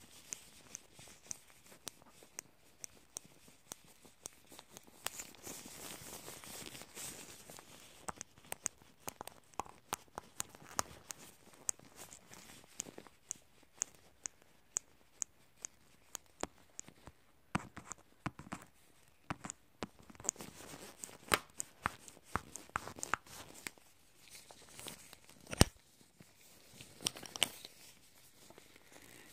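Metal tweezers clicking and picking close to the microphone in many irregular sharp ticks, mimicking the plucking of stray eyebrow hairs. There is one much louder snap near the end.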